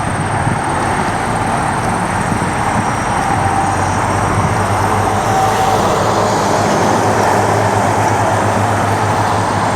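Jet aircraft passing low overhead: loud, steady engine noise with a faint whine above it, swelling a little in the middle of the pass.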